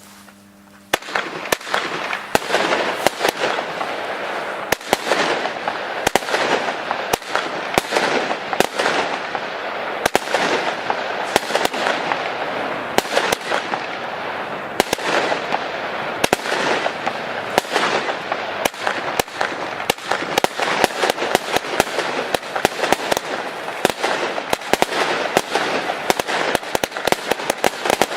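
WECO "Showdown" firework going off without a break: many sharp bangs, several a second, over a steady crackling hiss, beginning suddenly about a second in.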